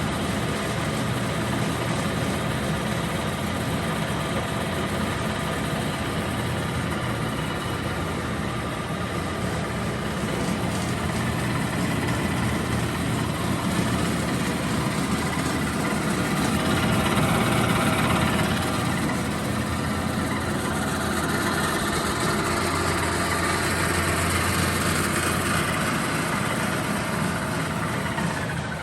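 Clausing 8540 horizontal milling machine running under power: its three-phase motor and spindle drive make a steady hum and whine while the automatic table feed moves the table. The sound swells briefly about two-thirds of the way through.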